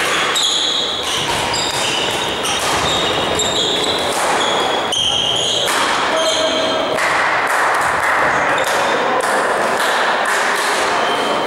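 Badminton doubles rally: sharp racket hits on the shuttlecock and short, high squeaks of court shoes on the sports-hall floor, echoing in the hall.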